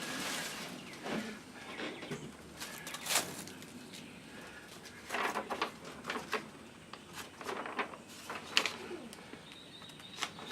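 Scattered light clinks and knocks of metal yard-cart parts being handled and set down: nuts, bolts, axle pieces.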